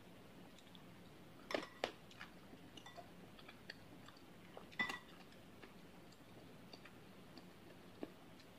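A metal spoon clinks against the bowl, with a short ring each time: twice about one and a half to two seconds in, and loudest about five seconds in. Between the clinks there is faint, soft chewing of chewy tapioca meatballs (bakso aci).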